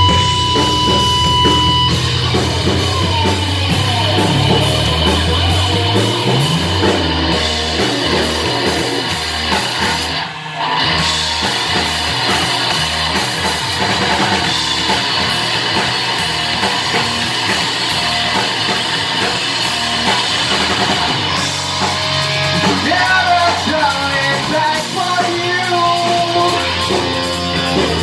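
Live rock band playing loud: electric guitar, electric bass and drum kit together, with a brief break about ten seconds in. Vocals come in over the band in the last few seconds.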